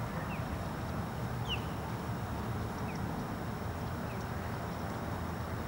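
Steady low outdoor rumble with a few short, high, falling bird chirps, about four spaced a second or so apart.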